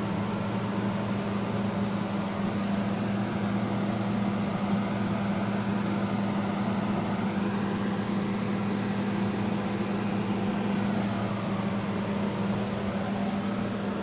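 Steady machine hum: a constant low drone with an even hiss over it, unchanging throughout.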